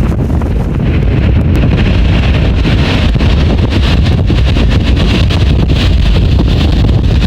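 Strong wind buffeting the microphone: a loud, steady low rumble, with a hiss of ocean water that rises about a second in.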